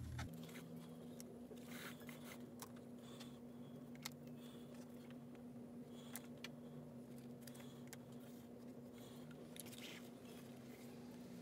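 Paracord being threaded and pulled through the metal grommets of a canvas stock cover: faint scattered clicks and rustles over a steady low hum.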